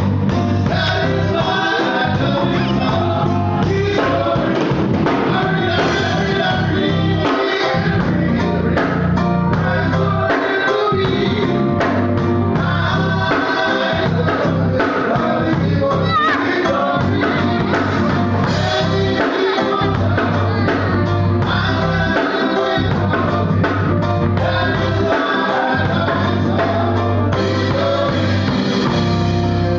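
A live gospel band performing: a man and a woman singing into microphones over electric keyboard and drum kit.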